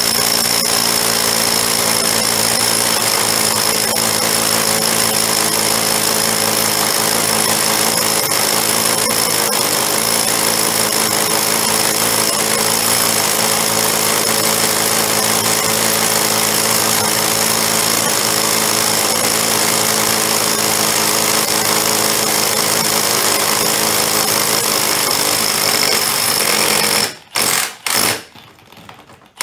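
Power drill running steadily at constant speed under load. Near the end it stops, then starts again in a couple of short bursts.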